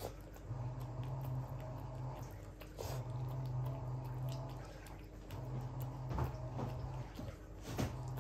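Old dachshund eating soft, wet home-made food from a ceramic bowl: irregular wet lapping and chewing, with a few sharper clicks of mouth against the bowl about three, six and eight seconds in. Under it, a low hum switches on and off in a regular cycle, about every two and a half seconds.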